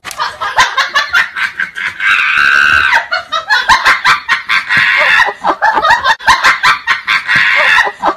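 A person laughing hard in rapid, high-pitched bursts, with one drawn-out high note about two seconds in.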